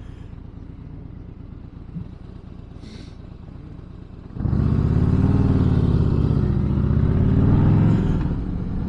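Harley-Davidson Fat Boy Lo's V-twin engine rumbling low while cruising. About four and a half seconds in it turns suddenly much louder as the bike accelerates, its pitch rising and falling through the pull, then eases off slightly near the end.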